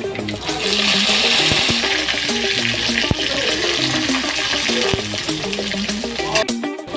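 Food sizzling in a hot pan, a steady hiss that swells about half a second in and fades around five seconds in, over background music. The sound drops out briefly near the end.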